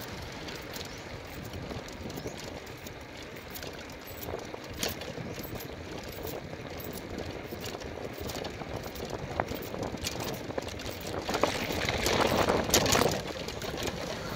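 Wind rushing over the microphone and road noise from riding a two-wheeler along a rural road, with a few light knocks. The wind noise swells louder about eleven seconds in.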